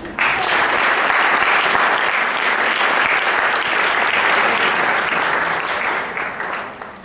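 Audience applauding, starting abruptly and fading out near the end.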